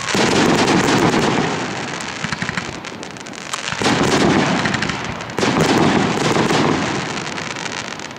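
Aerial fireworks bursting and crackling: a loud burst near the start, another just before four seconds in and a third about five and a half seconds in, each followed by a long, dense crackle that slowly fades.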